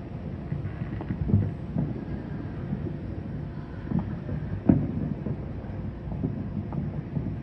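Distant New Year fireworks going off: a string of dull booms and pops over a low rumble, the loudest a little under five seconds in.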